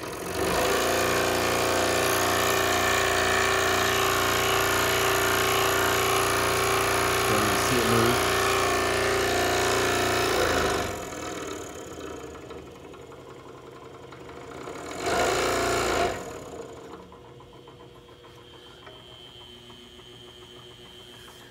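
DeWalt DW788 variable-speed scroll saw running, its motor and reciprocating blade giving a steady loud hum. The sound drops off about eleven seconds in, comes back loud for about a second near fifteen seconds, then stays low.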